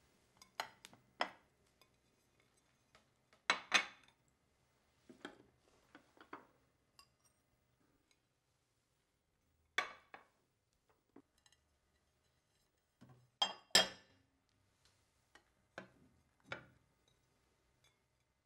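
Porcelain plates, bowls and chopsticks clinking as dishes are turned over and handled on the table: short, sharp clinks coming singly or in quick pairs at irregular intervals, the loudest about four seconds in and again near fourteen seconds.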